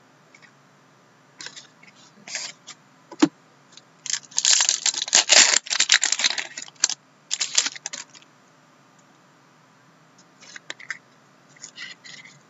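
Foil wrapper of a hockey card pack crinkling and tearing as it is opened by hand, in a dense run of crackles from about four seconds in that lasts some four seconds. Scattered clicks and rustles of cards being handled come before and after.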